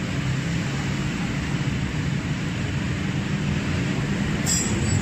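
Welding arc on a cast aluminium engine case: a steady buzzing hiss with a low hum underneath, and a brief sharp crackle near the end.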